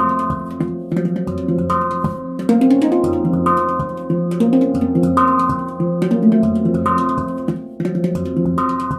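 Handpan by NamiHandpan in an F2 'flamenco hijaz' scale, played with the fingers: struck steel notes ring on over one another in a flowing rhythmic phrase above deep bass notes. It is recorded in a very dry room, so there is little reverberation.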